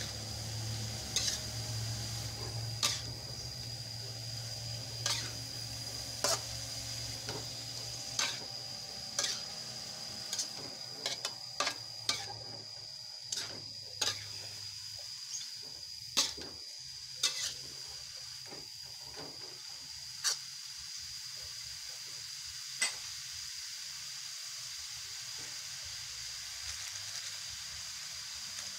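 Shredded young papaya stir-frying in a metal wok: a steady sizzle, with a spatula scraping through the food and knocking against the wok about once a second. The knocks thin out and stop about three-quarters of the way through, leaving the sizzle alone.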